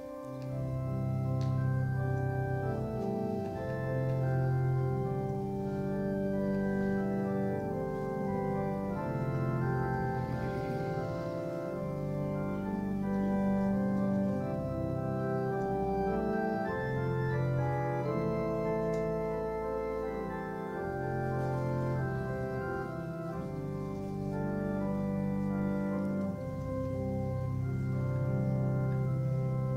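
Organ playing a slow piece of sustained chords over a steady bass line, the chords changing every second or two.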